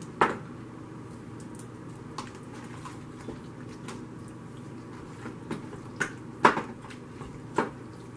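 A spoon stirring a wet mix of cornbread dressing and chicken in a plastic bowl, with a few sharp knocks of the spoon against the bowl: one just after the start, then three more in the last few seconds, the loudest about six and a half seconds in.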